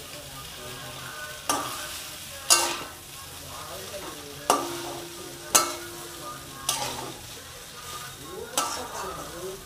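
Boiled noodles and vegetables being stir-fried in a metal kadai: a steady sizzle of frying, with six sharp clanks of a metal spatula striking and scraping the pan as the noodles are tossed, some leaving the pan ringing briefly.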